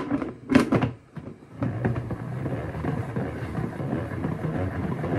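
Hand-spun plastic salad spinner drying washed greens: a few sharp plastic clatters as the lid is handled, then from about a second and a half in a steady whirring rattle of the spinning basket, which stops suddenly at the end.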